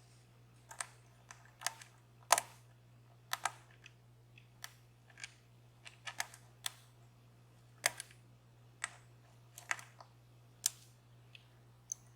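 Irregular small metal clicks and taps of a lock pick and tension wrench working the pins of a DOM Plura lock, one or two a second, the loudest about two seconds in.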